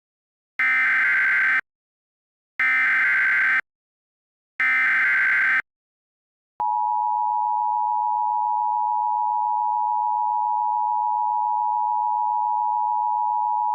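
Emergency Alert System SAME header: three one-second bursts of warbling digital data tones, one second apart. About six and a half seconds in, the EAS two-tone attention signal (853 and 960 Hz together) starts and holds steady.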